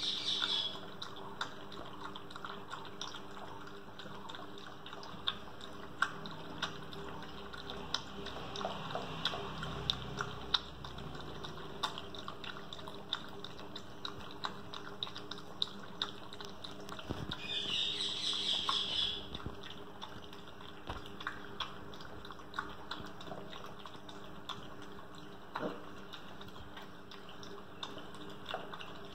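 German Shepherd puppy lapping milk from a plastic bowl: a long run of quick, irregular wet laps and tongue clicks. About two-thirds of the way through, a brief high-pitched sound rises over the lapping for a second or so.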